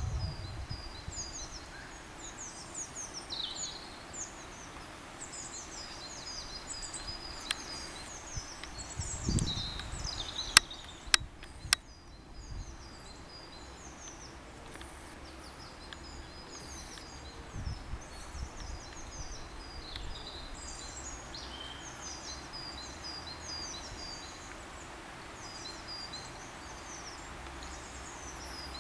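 Small songbirds chirping and singing, with many short high calls overlapping. Three sharp clicks come about ten to twelve seconds in, and a few low thumps come at other points.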